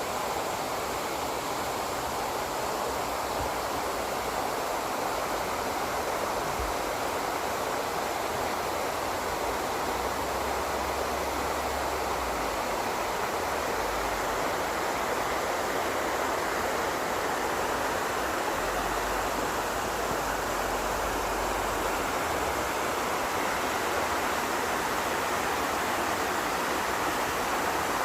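Waterfall in a mountain valley stream, water falling and rushing in a steady, even roar.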